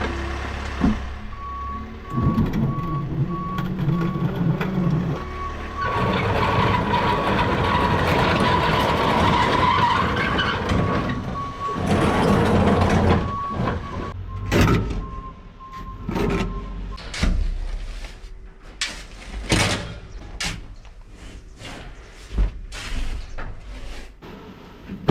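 Farm vehicle engine running with a reversing alarm beeping in even pulses; over the second half the engine sound drops and a string of sharp knocks and scrapes takes over.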